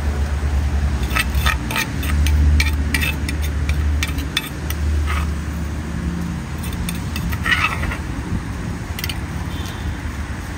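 Metal spoon clinking and scraping against a clay papaya-salad mortar as the salad is scooped into a plastic bag, with a series of sharp clinks in the first few seconds and plastic bag rustling later. A low rumble runs underneath, strongest in the first half.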